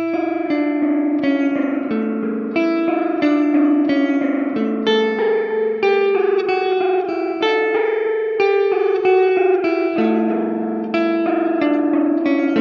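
Electric guitar playing a melodic line of single picked notes, a few per second, through an EarthQuaker Devices Disaster Transport SR modulated delay and reverb pedal, with each note ringing on into the next.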